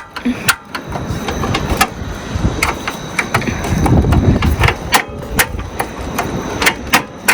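Portable gas cooker being worked to light it: a string of irregular sharp clicks from its igniter and knob, over a low rumble that is loudest about four seconds in.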